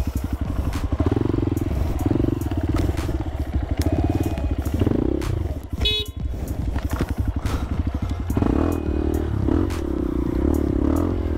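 Dirt bike engine revving hard and labouring, with a rapid pulsing beat. About six seconds in it dips briefly with a short high-pitched squeal, then revs rise again from about eight seconds.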